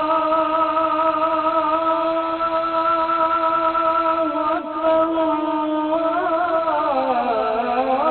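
A muezzin's solo male voice chanting the adhan, the Islamic call to prayer, as sung in Mecca. He holds a long note, then from about six seconds in his voice winds up and down in ornamented runs.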